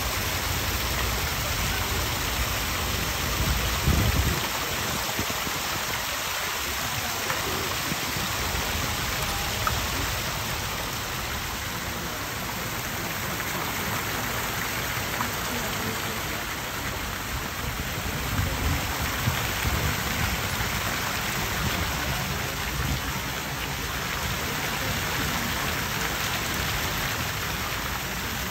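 Fountain water splashing steadily into a stone basin from its jets and spouts, a constant hiss of falling water. Brief low rumbles come about four seconds in and again about eighteen to twenty seconds in.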